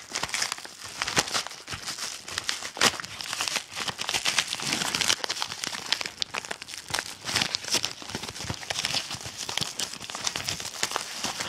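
A white mailing envelope being opened and handled: continuous irregular crinkling and crackling of the packaging, with some tearing.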